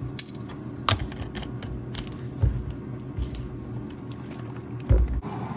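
Scattered clicks and taps of kitchen items being handled while a cup of coffee is made, with a few dull thumps, the loudest near the end.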